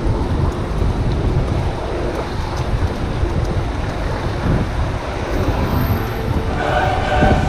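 Wind buffeting the microphone of a chest-mounted action camera on a moving bicycle, a steady low rumble. Near the end, voices singing come in over it.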